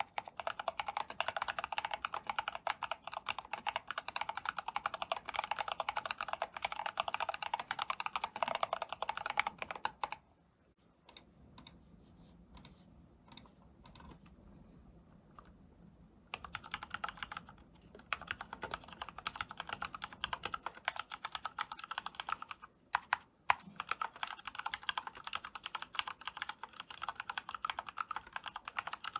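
Continuous fast typing on an Akko FX1 Gunmetal mechanical keyboard with linear red switches lubed with Krytox 105. The first part is on the Artbox red, SA-profile PBT keycap version. After a break of several seconds with only a few faint knocks, typing resumes on the Cherry MX Red, Cherry-profile PBT keycap version.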